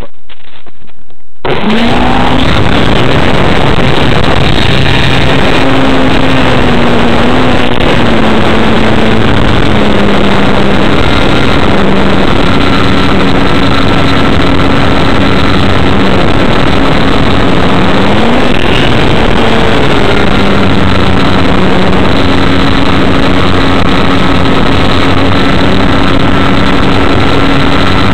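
A radio-controlled model airplane's motor and propeller, heard from a camera mounted on the plane. The motor starts suddenly about a second and a half in and then runs loud and steady as a buzzing hum over a rushing hiss, its pitch stepping and gliding up and down a few times.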